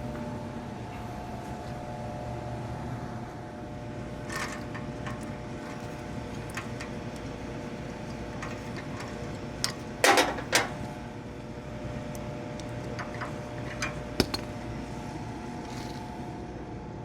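A steady machine hum holding several even tones, broken by a few sharp metallic clicks and knocks. The loudest is a cluster of clanks about ten seconds in.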